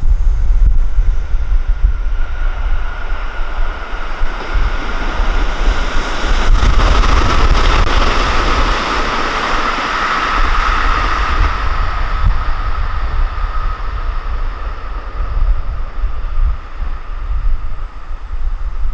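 A passing train, its noise swelling and then fading over several seconds with a steady whine in it, under heavy wind rumble on the microphone.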